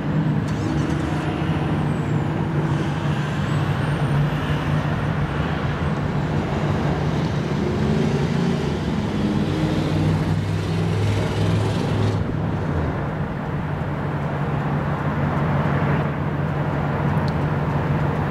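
Motor vehicle engine running steadily with road traffic noise; a rushing noise drops away about twelve seconds in.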